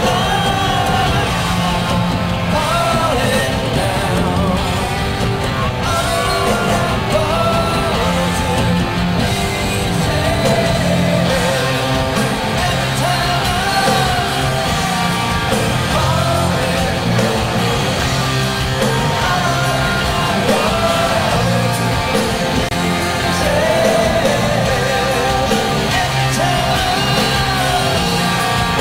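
Rock band playing live: electric guitars, bass and drums with a male singer's vocals.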